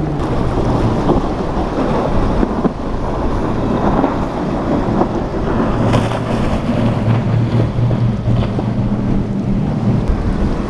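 Center-console fishing boats passing at speed on triple and quadruple outboard motors, a steady engine tone over the rush of hull and spray through choppy water, with wind buffeting the microphone.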